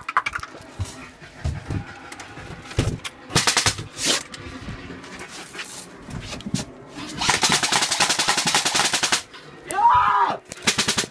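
Airsoft gun firing rapid full-auto bursts: a short burst a few seconds in and a longer one of about two seconds past the middle.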